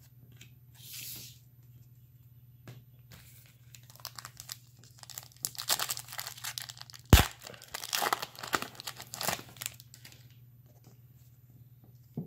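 Foil wrapper of a Panini Playoff football card pack being torn open and crinkled in the hands. The tearing and crackling runs most densely through the middle, with one sharp snap the loudest sound.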